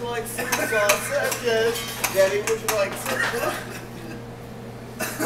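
Metal forks clinking and scraping against ceramic dinner plates as people eat, a run of quick clinks that thins out after about three seconds.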